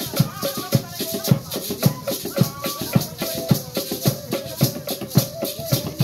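Emberá dance music: a wooden hand drum beaten steadily about twice a second, a flute playing a short repeating melody, and a rattle shaken along with the beat.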